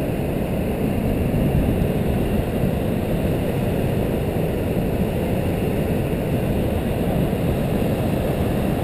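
Steady deep rush of Niagara's Horseshoe Falls, the water pouring into the gorge, an even roar heavy in the low end with little treble.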